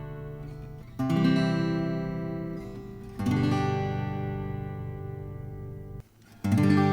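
Guild M-260e acoustic guitar, strung with D'Addario Flat Tops 12–53, strummed one chord at a time, each chord left to ring out and fade. Three chords about two to three seconds apart, with the sound cutting out briefly just before the last.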